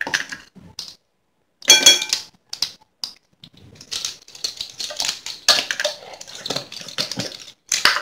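Kitchen spoons and spice containers being handled: a sharp ringing clink about two seconds in, then a long run of quick, light clicks and rattles.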